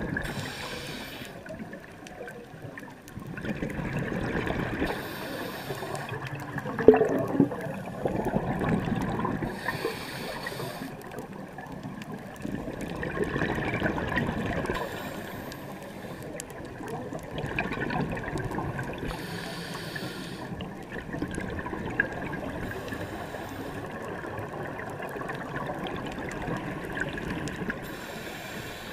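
Scuba regulator breathing heard underwater. A hissing inhale comes about every four to five seconds, and each is followed by the bubbling of the exhaled air. There is a brief louder burble about seven seconds in.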